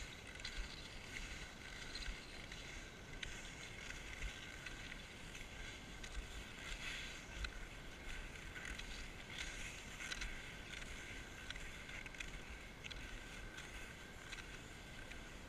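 Cross-country skis swishing over crusty snow, with ski poles crunching into it, in a rhythmic stride.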